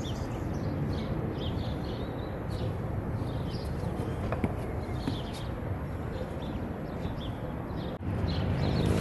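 Outdoor ambience: many short, high bird chirps over a steady low background noise, with a single sharp click about four and a half seconds in. The low noise grows louder near the end.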